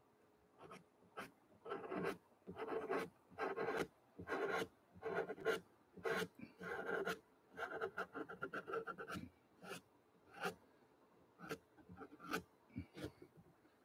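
Pastel pencil scratching across gesso-coated watercolor paper in a series of short strokes, with a quick run of rapid short strokes a little past halfway.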